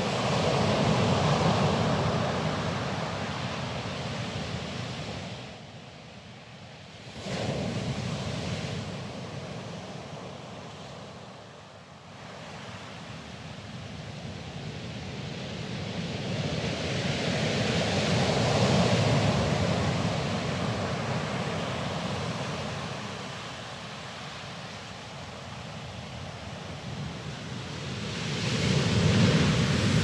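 Sea waves breaking and washing over a pebble beach, a steady hiss that swells and recedes in slow surges, with one wave rising sharply about seven seconds in and another building near the end.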